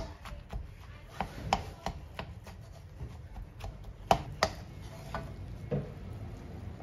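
A spatula chopping and pressing through a wok of sticky glutinous rice mixture, knocking against the pan in irregular sharp taps, the loudest about four seconds in.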